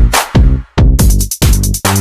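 Electronic dance music with a fast drum-machine beat and heavy bass.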